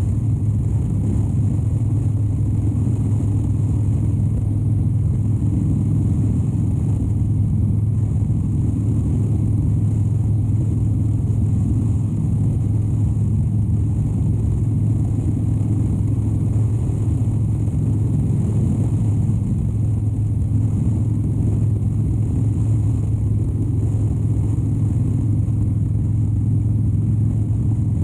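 2013 Harley-Davidson Dyna Wide Glide's 103-cubic-inch V-twin running at a steady cruise, a constant low engine note that holds its pitch without revving up or down.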